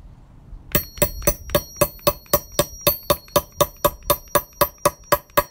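Claw hammer striking a metal grommet flaring tool in quick, steady blows, about four a second, each with a bright metallic ring, flaring a grommet to set it through fabric. The hammering starts just under a second in.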